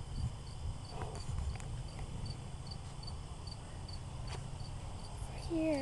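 High, even chirping from an insect, about two or three short chirps a second, over a steady low rumble with a few soft knocks.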